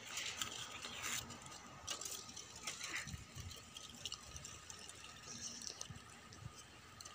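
Faint, scattered rustles and light scrapes of hands handling an instrument and its packing in a case.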